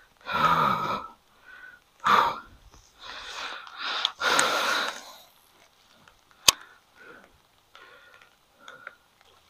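A man breathing out heavily in several sighs and breaths, the first with a low voiced groan, followed by one sharp click about six and a half seconds in.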